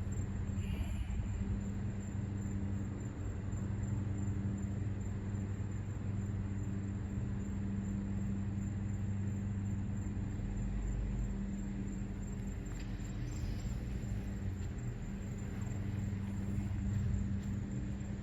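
Steady low outdoor rumble with a faint hum running through it, and a brief faint high chirp about a second in.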